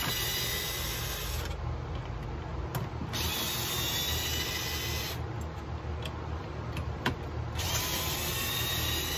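DeWalt cordless electric screwdriver backing out the handle screws of a chainsaw, running in three spells of about two seconds each with short pauses between, one screw after another.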